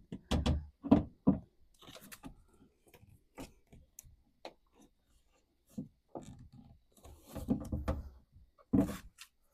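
Irregular knocks, clunks and rubbing from objects being handled, with several louder thuds in the first second and again near the end.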